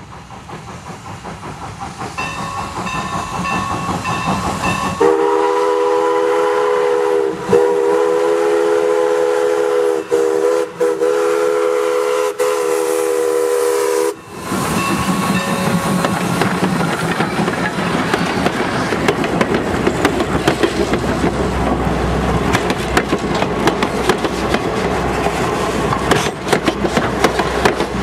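A steam locomotive approaches, growing louder, then sounds its chime whistle as a steady chord in a long, long, short, long pattern, the signal for a grade crossing. The locomotive and its passenger coaches then roll past, wheels clicking over the rail joints over a low rumble.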